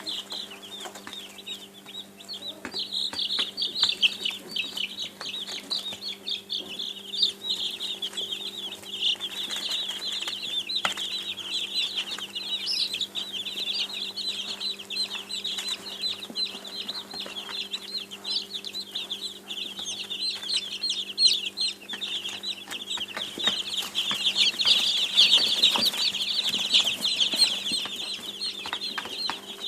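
A flock of baby chicks peeping, with many short high-pitched calls overlapping in a constant chatter that swells a little louder near the end. A steady low hum runs beneath.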